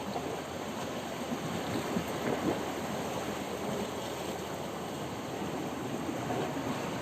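Sea waves washing against rocks: a steady, crackling wash of surf that swells a little about two seconds in.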